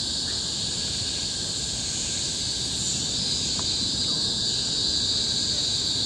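Cicadas shrilling in chorus: a loud, steady, high-pitched drone that does not let up, over a low rumble.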